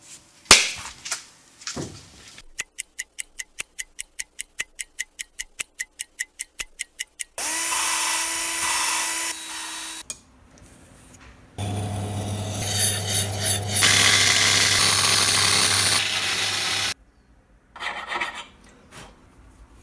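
Tools at work on an engine cylinder head. A run of even clicks, about four a second, is followed by an electric power tool running for about two and a half seconds, then again for about five seconds, this time with a low hum.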